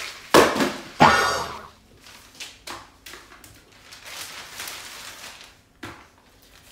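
Groceries being unpacked from a plastic shopping bag: two loud thuds in the first second and a half, then lighter knocks and rustles.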